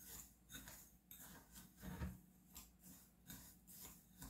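Epsom salts being stirred in a bowl: faint, rhythmic gritty scraping, about three strokes a second.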